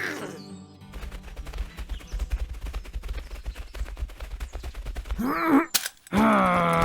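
A rapid, dense crackle of gunfire for about four seconds over a low rumble. Near the end a voice grunts, then lets out a drawn-out groan.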